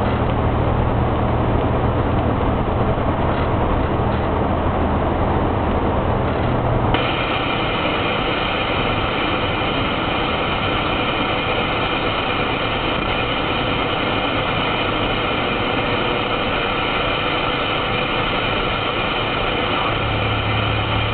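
Steady road and engine noise from inside a car driving through a highway tunnel. About seven seconds in, the sound changes abruptly: the low hum gives way to several steady high tones. The low hum returns near the end.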